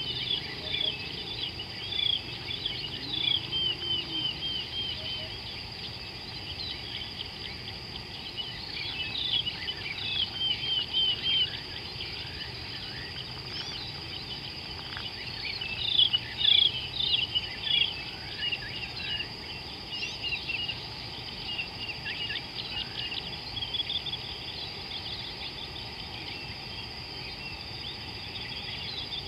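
Birds chirping and calling in short, quick repeated notes, several at once, over a steady high insect drone. The chirping swells twice, about ten seconds in and again at around sixteen seconds.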